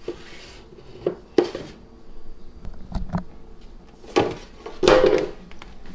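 Kitchen handling noise: a metal baking sheet being moved, with a few separate knocks and scrapes. The two loudest come about four and five seconds in.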